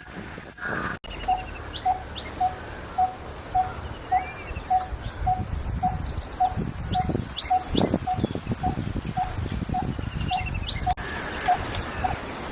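Coppersmith barbet calling its monotonous 'tuk' note over and over at an even pace, a little under two notes a second, starting about a second in. Other small birds chirp higher above it.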